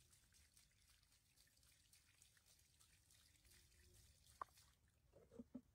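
Near silence, with faint scattered ticks and one sharp click about four and a half seconds in, then a brief pitched squeak-like sound near the end.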